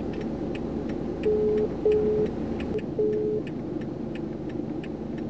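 Mobile phone call ringing out: three short beeps of one steady tone, the first two close together, the ringback tone heard while waiting for the call to be answered. Under it the steady hum of the idling car and a light ticking about three times a second.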